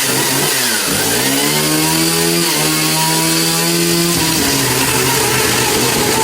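1983 Stihl Wood Boss gas chainsaw, a two-stroke, running at high revs while cutting into a hot tub. The pitch dips and recovers about a second in, then drops a little after about four seconds.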